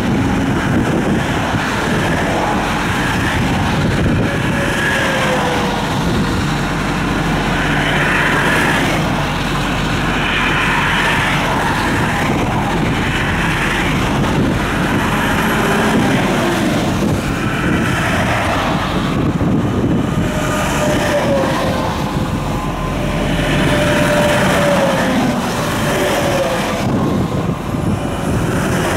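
Highway traffic going past close by: semi trucks and pickups passing one after another, a steady rush of tyres and engines that swells with each pass-by, with a few tones that slide down in pitch as vehicles go by.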